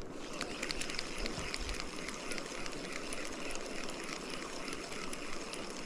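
Ultralight spinning reel being cranked to retrieve a jigged lure, with a soft run of faint ticks over a steady low hiss.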